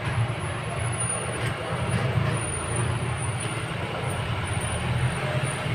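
Steady low rumble with a hiss above it, a continuous background noise.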